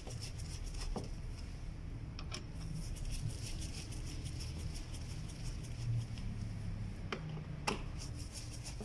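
Phillips screwdriver tightening the screws of a Renault Logan's plastic air filter housing cover, giving a few faint clicks and taps over a low steady rumble.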